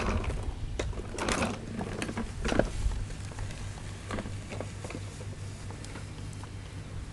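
A child's plastic tricycle rattling and knocking as it is pedalled over grass, with irregular clatters and a steady low hum underneath.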